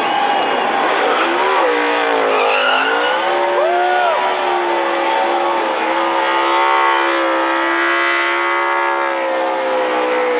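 NASCAR stock cars' V8 engines running through a corner. The pitch drops as the drivers lift, rises in a quick rev blip about four seconds in, then holds steady under throttle. One car spins out with its tyres squealing.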